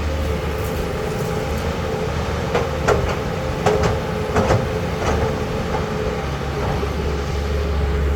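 CAT 320 hydraulic excavator working, its diesel engine running steadily, with a run of about half a dozen sharp metallic clanks in the middle.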